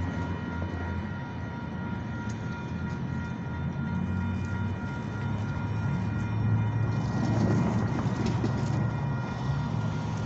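Amtrak diesel locomotive running out of sight, a steady low engine drone with a steady high whine over it. A road vehicle passes about seven seconds in.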